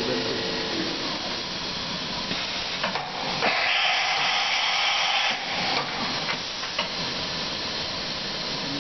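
Victor V-Center 70 CNC vertical machining center running with a steady hissing noise, which turns louder and higher for about two seconds in the middle, with a few light clicks.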